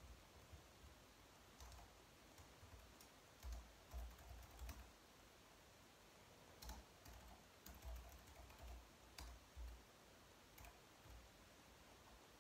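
Faint typing on a compact low-profile wireless keyboard: key taps come in short bursts separated by pauses.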